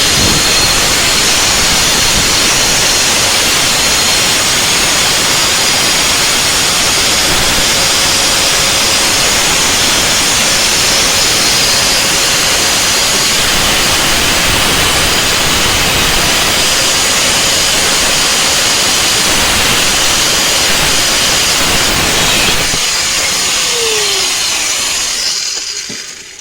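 Harbor Freight Warrior 4.5-inch angle grinder with a thin 1/16-inch cut-off disc running at full speed and cutting metal, a steady high whine and hiss. It starts suddenly, runs for over twenty seconds, then is switched off and winds down with a falling pitch near the end.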